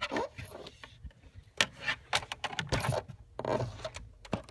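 Irregular scraping and rustling with a few sharp clicks as wires and a fish line are worked by hand through a rubber firewall grommet.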